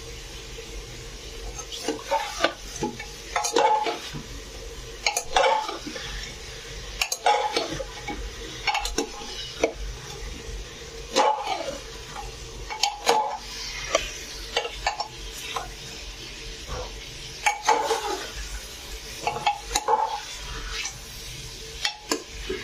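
Steel spoon stirring and scraping chicken pieces in an open aluminium pressure cooker, knocking against the pot every second or so, over a steady sizzle of frying. The chicken is being fried to cook off its own water.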